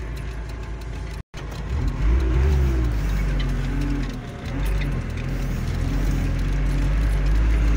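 Hino truck's diesel engine running as the truck drives along, heard from inside the cab: a steady low drone that gets louder about two seconds in, its pitch rising and falling a little. The sound cuts out for an instant just over a second in.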